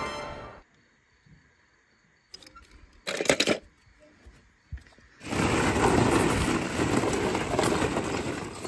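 Music fades out at the start. About three seconds in comes a short clatter. From about five seconds in, plastic ball-pit balls rustle and clatter steadily as a hand digs through them.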